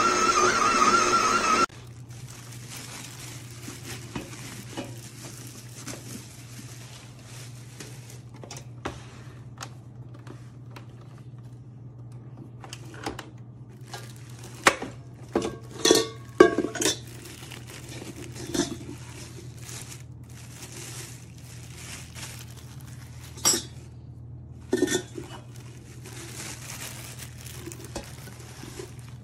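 Stainless steel mixing bowl handled in its plastic bag: scattered metallic clinks and knocks, loudest in a cluster around the middle and twice more near the end, over a steady low hum and bursts of rustling. A louder steady sound cuts off abruptly about a second and a half in.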